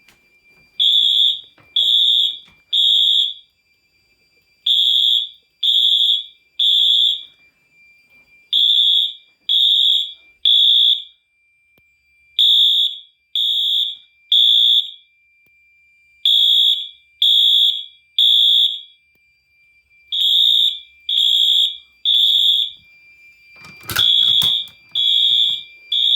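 Two Wheelock MT electronic horns sounding the code 3 temporal pattern: three loud high-pitched blasts about a second apart, a pause, then three more, repeating. This is the standard fire-alarm evacuation signal. A faint steady high tone runs underneath, and a knock or clatter comes near the end.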